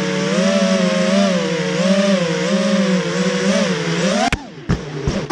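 FPV racing quadcopter's four 2204 2300kv brushless motors and 5-inch props whining in flight, heard from on board, the pitch wavering up and down with the throttle. About four seconds in the whine rises sharply and then cuts off as the throttle is chopped, followed by short throttle blips.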